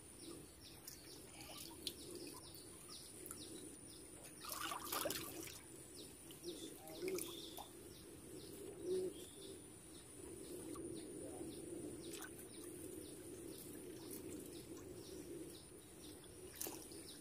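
Faint birds chirping, many short high calls repeating throughout over a steady low background. A brief louder noise comes about five seconds in.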